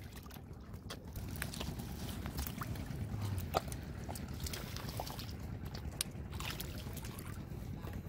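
Hands sloshing and splashing in shallow muddy water while groping for fish, with scattered small clicks and slaps.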